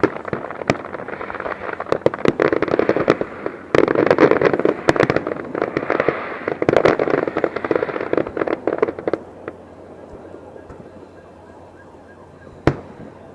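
Fireworks display: a rapid barrage of bangs and pops that dies down about nine seconds in, followed by a single bang near the end.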